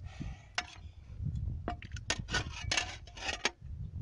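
Metal spade blade scraping and cutting into damp earth in a run of short, repeated scrapes.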